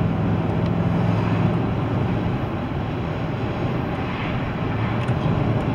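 Car interior noise while driving: engine hum and tyre/road noise heard from inside the cabin, steady throughout.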